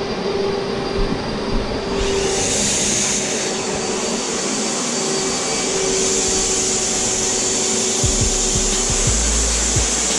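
Capspray HVLP turbine running steadily with a hum. About two seconds in it is joined by a strong hiss of air from the HVLP spray gun as it sprays coating onto the tub. A few low bumps come near the end.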